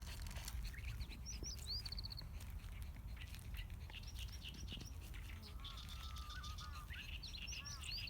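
Several wild birds singing and chirping at once, with quick trills and short arching calls, over a steady low rumble.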